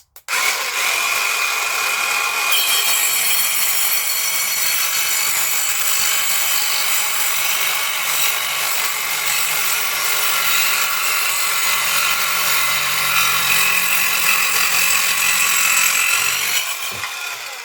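Galax Pro mini circular saw running and cutting through a decking board, a steady high-pitched whine with the blade grinding through the wood. Near the end the cut finishes and the saw winds down.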